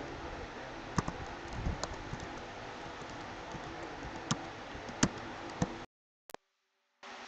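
Computer keyboard keys being typed: a handful of scattered clicks over a steady background hiss. Near the end the sound cuts out completely for about a second, broken by a single click.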